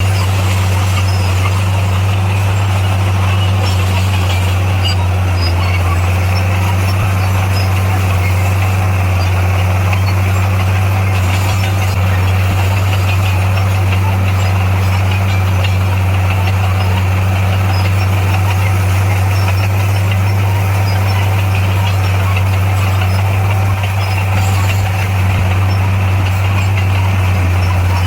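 Heavy earthmoving machine's diesel engine running at a steady speed, a loud constant low drone that neither revs up nor down.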